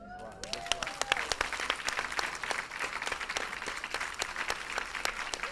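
Studio audience applauding: a dense, even patter of many hands clapping.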